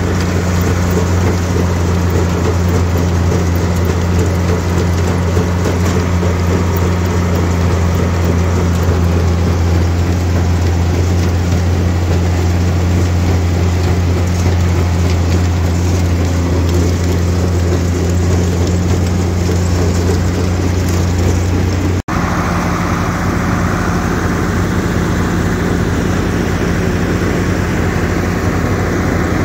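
Silage bagger and tractor running steadily under load as chopped sorghum-sudangrass is fed in from a self-unloading forage wagon, making a loud, even machine drone. About 22 seconds in the sound breaks off for an instant, and a rougher machine noise without the deep hum carries on.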